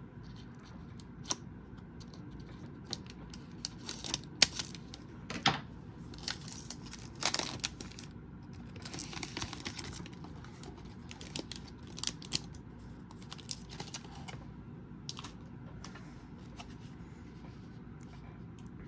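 A foil pack of trading cards being torn open and the cards handled: scattered short rips, crinkles and light taps that thin out near the end.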